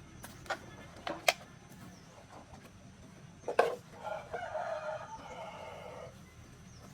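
A rooster crows once, a call of about two seconds, after a few sharp knocks.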